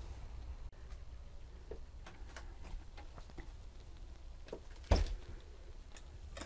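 Scattered light clicks and knocks, with one louder thump about five seconds in, from footsteps and handling on loose wooden debris in a wrecked boat cabin.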